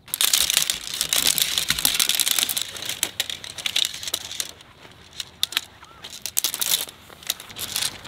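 Folded hubbed tent-pole frame being unfolded: pole segments clattering and clicking against each other, with rustling of tent fabric. Busy and dense for the first few seconds, then sparser, scattered clicks.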